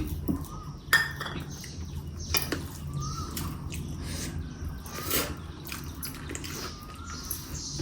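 Scattered clinks and taps of a meal being eaten from a plate, with faint bird chirps in the background.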